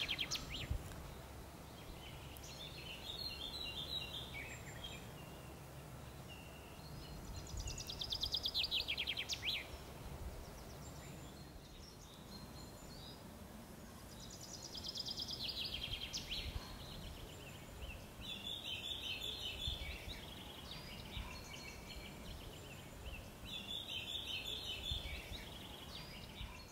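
Small songbirds singing, a short phrase of quick falling trills or repeated notes every few seconds, over a faint steady outdoor hiss.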